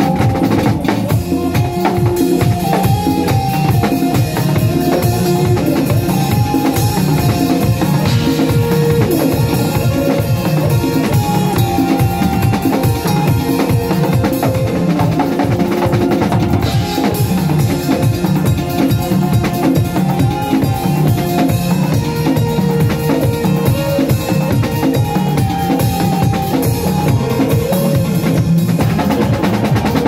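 Acoustic drum kit played continuously in a jamming groove, with kick drum, snare hits and cymbals, over melodic music underneath.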